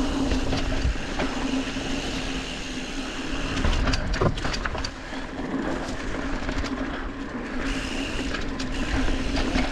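Mountain bike rolling fast down a dirt trail over dry leaves: tyre noise and wind on the microphone with a steady buzz from the bike, and a few sharp clatters of the bike over bumps about four seconds in.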